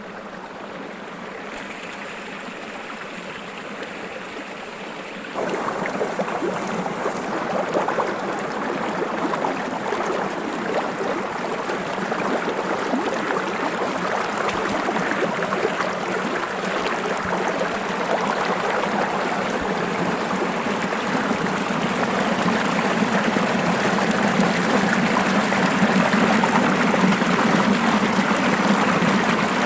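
A small forest stream flowing steadily, a continuous rush of water. It steps up in loudness about five seconds in and grows slowly louder toward the end.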